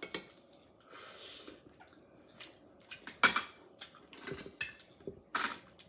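Chopsticks and clam shells clicking and clattering against a glass bowl and dishes while clams are eaten: scattered light clicks, with the two sharpest strikes about three seconds in and near the end.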